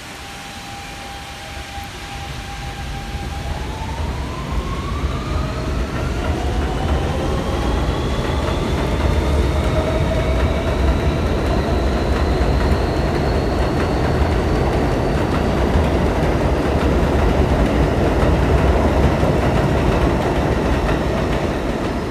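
New York City subway train pulling away and accelerating. Its electric traction motors give a steady whine that starts rising in pitch a few seconds in and keeps climbing as the train gains speed, over a low rumble of wheels on track.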